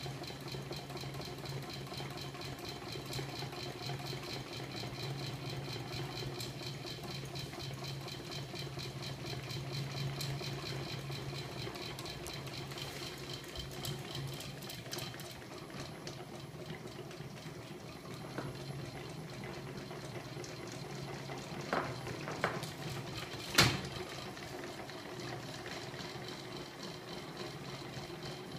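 Homemade magnet-coupled crankshaft rig running, driven by a small 24 V electric motor: a steady hum with a fast ticking rattle from the spinning flywheels and crank parts. The ticking fades about halfway through, and three sharp knocks come about three-quarters of the way in, the last one the loudest.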